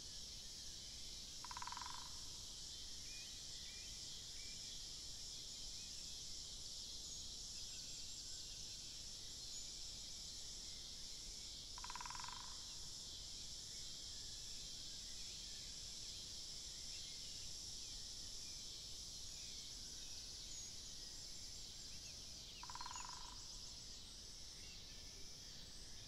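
Faint, steady high-pitched buzzing of cicadas. A short, low bird call sounds three times over it, about ten seconds apart.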